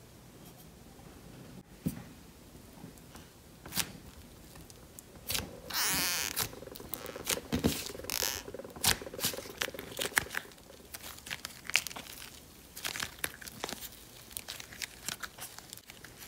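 Hands kneading and squishing air-dry clay slime with foam beads mixed through it, giving irregular crackles and squelches, with one longer, louder stretch about six seconds in.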